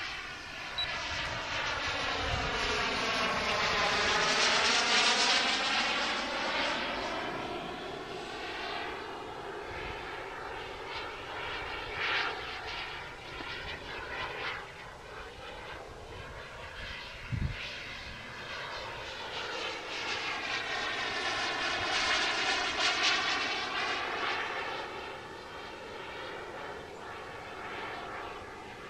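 Radio-controlled model airplane's motor whining overhead as it flies past. The pitch dips and climbs again with each pass, and it is loudest about four seconds in and again a little past twenty seconds.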